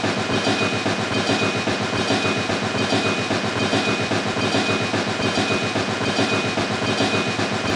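Miniature model train running along its track: a steady, fast clatter with a thin, even whine.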